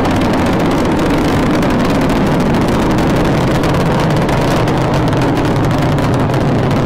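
Space Shuttle Discovery's rocket engines at full thrust during ascent: a loud, steady, rumbling noise.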